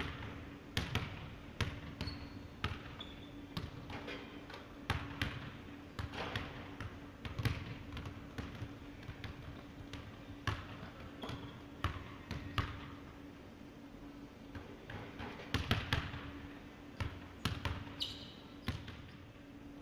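Basketballs bouncing on a hardwood gym floor: several players dribbling and shooting at once, so the bounces come in an uneven, overlapping rhythm of sharp thuds.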